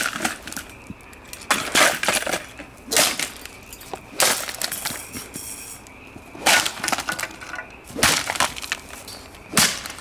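Vintage plastic table fan being smashed apart: a series of sharp, cracking impacts, about nine in all and irregularly spaced, as its plastic housing and parts break.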